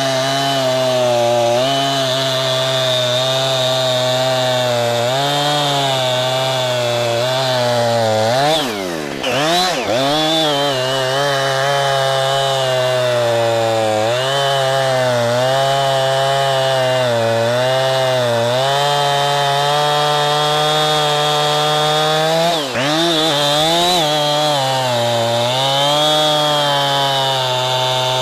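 60cc Husqvarna two-stroke gas chainsaw running near full throttle while cutting through a large log. Its engine note holds steady except twice, about nine seconds in and again near twenty-three seconds, when the pitch briefly drops and then climbs back up.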